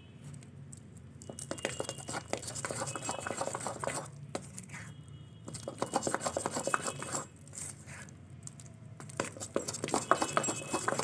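Metal spoon stirring a thick, wet ground chana dal paste in a steel bowl, scraping and clinking against the bowl in quick strokes. The stirring comes in three spells with short pauses between.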